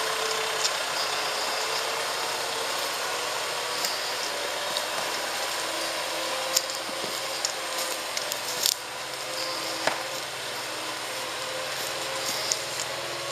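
Farm tractor engine running steadily as it pulls a log-loaded forwarder trailer away along a forest skid trail. The engine gets slightly quieter in the second half, and a handful of sharp clicks and knocks sound through it.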